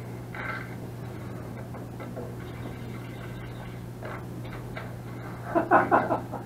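Steady low hum with faint scattered noise, like room tone from the film's playback. Near the end comes a short burst of a voice from the film's soundtrack.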